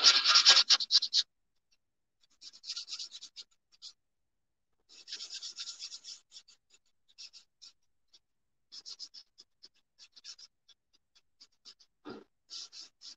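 Sanding block rubbed over a painted terracotta pot, distressing the blue paint back so the terracotta shows through: scratchy strokes in short bursts, loudest in the first second. A soft knock near the end.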